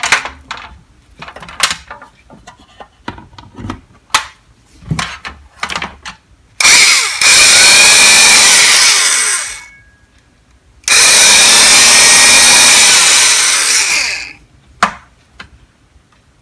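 Knocks and rattles of a Sunbeam Drill Master model 70 quarter-inch electric drill being lifted out of its box, then its motor run twice for about three seconds each with a steady high whine, winding down after each release.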